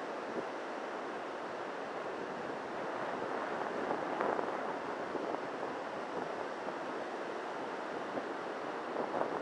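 Surf breaking on a sandy beach: a steady wash of waves that swells about four seconds in.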